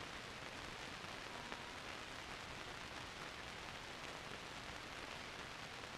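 Steady hiss with nothing else over it: the background noise of an old film soundtrack.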